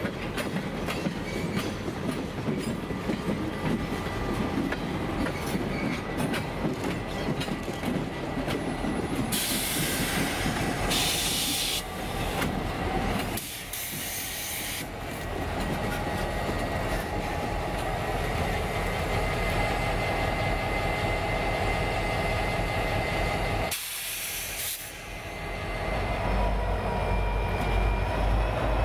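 EMD SD50-2 diesel locomotives running past at switching speed, with the rumble of their engines and the clatter of wheels over the rails. Several loud hissing bursts come through in the middle and near the end.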